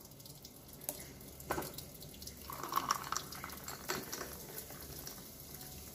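Pineapple-mint juice poured from a jug into a glass of ice and 7up: a faint trickle and splash of liquid, with a few small ticks.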